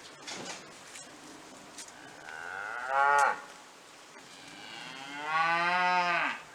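Cow mooing twice: a short moo about two seconds in, then a longer, drawn-out moo that ends just before the close.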